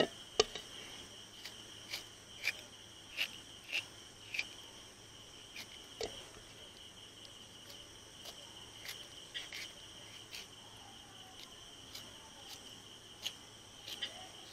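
Insects chirring steadily in high, even tones, with scattered sharp clicks and taps of a knife scoring cuts into fish, a few close together in the first few seconds, then sparser.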